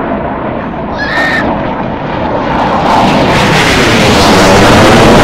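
Fighter jets flying low overhead: the rushing roar of their jet engines grows steadily louder from about halfway through until it is very loud near the end.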